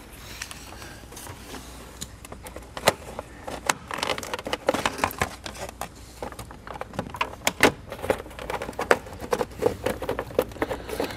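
Parts of a carbon-fibre air intake being handled and fitted into place by hand: irregular sharp clicks, taps and rattles, coming thicker about halfway through and again near the end.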